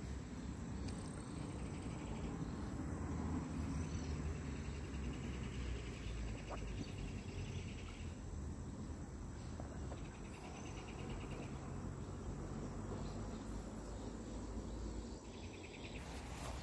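Insects trilling in several short bursts of fast, even pulses, one after another, over a steady low rumble. A few knocks come near the end.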